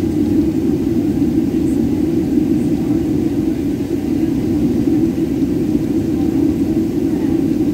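Jet airliner taxiing, heard inside the cabin by the window: a steady, loud rumbling hum of the engines and airflow with no change in power.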